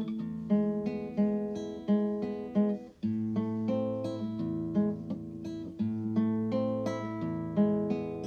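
Background music: acoustic guitar playing a run of plucked notes and strummed chords, with a brief break about three seconds in.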